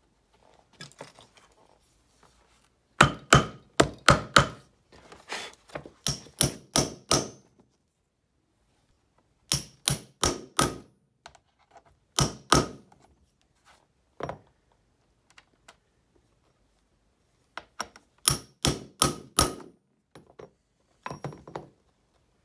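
Hammer blows on a rivet setter, hand-setting number 9 solid copper rivets and burrs through saddle leather: sharp metallic strikes in quick runs of three to six, with pauses of a second or more between runs.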